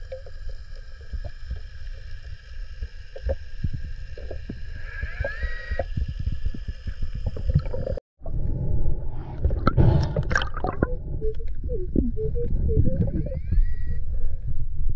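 Underwater sound as picked up by a diver's camera: a low rumble of moving water with scattered clicks and a few steady high tones, breaking off at a cut about eight seconds in. After the cut, louder churning and swishing water as a hand stirs up the sandy bottom.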